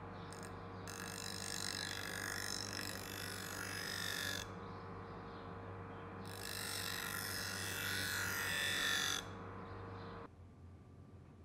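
Electric bench grinder running with a steady hum while the steel blade of a Bowie knife is pressed to the grinding wheel in two passes of about three seconds each, each a loud grinding hiss. The sound cuts off suddenly near the end.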